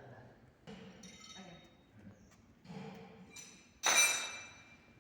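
A single sharp clink near the end, ringing for about a second as it fades, with low murmured voices before it.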